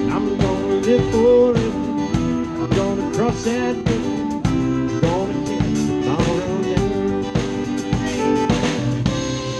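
Live country band playing an instrumental passage: drum kit keeping a steady beat under guitar and bass, with a lead melody line sliding between notes.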